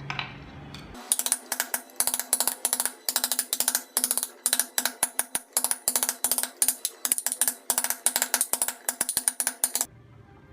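Rapid, fairly even clicking strokes of a carving tool working wood, about five or six a second, that start about a second in and stop shortly before the end.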